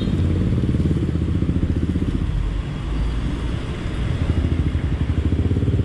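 An engine running at idle close by, a low, even, rapid pulsing.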